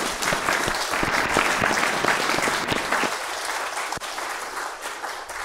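Audience applauding, the clapping thinning and dying down over the last couple of seconds.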